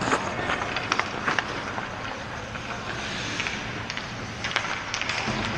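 Ice hockey skates scraping and gliding on the rink ice, with repeated sharp clacks of sticks and pucks.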